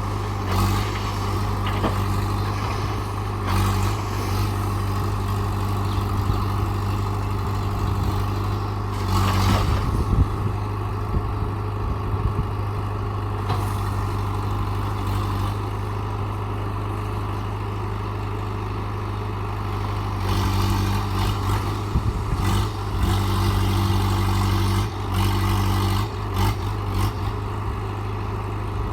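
JCB 3DX backhoe loader's diesel engine running steadily, working harder with stronger engine tone from about twenty seconds in, with a few knocks and clanks about nine seconds in.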